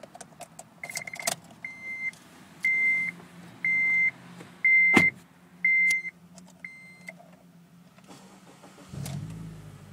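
Honda Civic Si dashboard chime beeping seven times, about once a second, with the ignition switched on, and a sharp click about five seconds in. Near the end the K20 four-cylinder engine starts and settles into a steady run.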